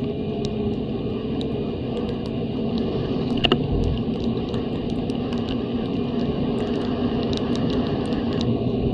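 Snowmobile engine running steadily at trail speed, with a rushing of wind and track noise and a single sharp knock about three and a half seconds in.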